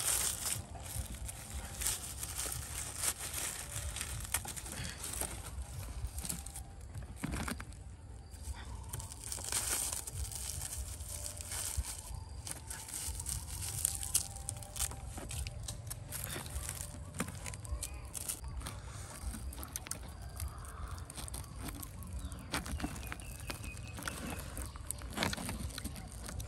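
Charred, dry corn husks being torn and peeled off roasted cobs by hand: repeated crackling and rustling tears.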